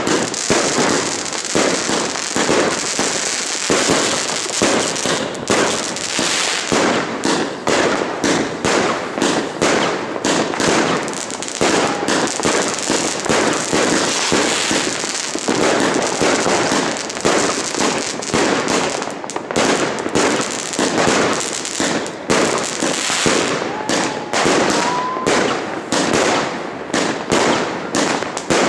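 A 61-shot F4 firework battery of 25–30 mm shots firing without a break: rapid launch thuds, burst bangs and titanium salute reports follow one another, several a second.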